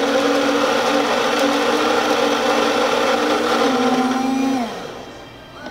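Saeco Odea espresso machine's built-in coffee grinder motor running steadily, dropping slightly in pitch just before it stops a little over four and a half seconds in. The hopper is believed to be out of beans, so it is grinding empty.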